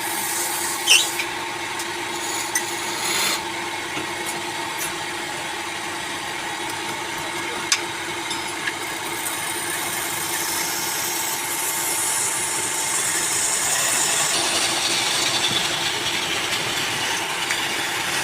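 Wood lathe running with a steady motor hum while a tool works the spinning wood, making a scraping hiss with a few sharp ticks early on. The scraping grows louder and brighter from about halfway through.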